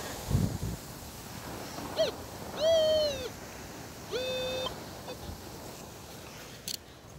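Metal detector audio tones, likely from a Minelab Manticore: three short beeps, the first a brief chirp and the next two about half a second each, with the pitch bending at the start or end of some.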